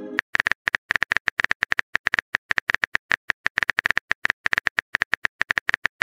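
Simulated phone-keyboard typing sound effect: rapid, uneven taps, several a second, each a short bright click.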